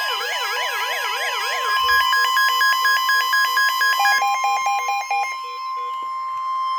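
Several NOAA weather radios sound a severe thunderstorm warning alert together. A steady, high warning alarm tone runs underneath a warbling siren-like alarm that stops about two seconds in. Rapid on-off beeping then takes over and dies out a little after five seconds.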